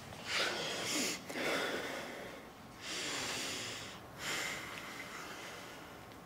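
A man breathing heavily: four long, loud breaths in and out, each about a second long.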